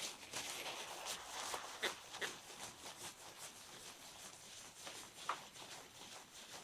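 Faint rustling and crinkling of tissue paper as a newborn kitten is wiped clean with it, with a few soft crinkles standing out about two and five seconds in.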